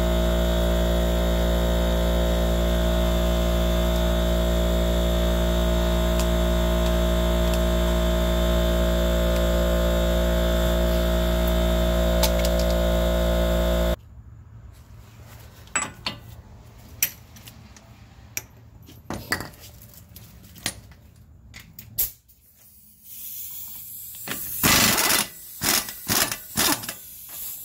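A loud, steady hum of several fixed tones runs for about fourteen seconds and stops abruptly. Then come light metal clinks of a socket being handled, and near the end an impact wrench hammers in short bursts on the 32 mm front axle nut of the Nissan Elgrande E51.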